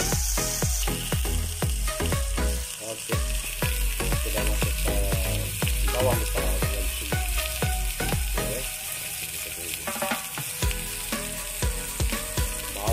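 Rice-coated fermented fish (ikan pekasam) frying in shallow oil in a non-stick pan over a low flame, sliced onions in with it. A steady sizzle with frequent short pops.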